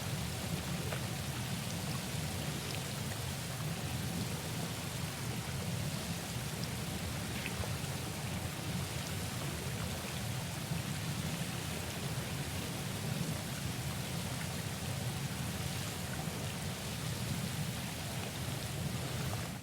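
Hot tub bubbling hard with strong jets: a steady churn of water and bursting bubbles over a low, even rumble.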